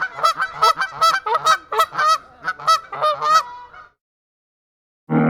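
Repeated honking bird calls, several a second, that stop about four seconds in. A different, deeper sound starts right at the end.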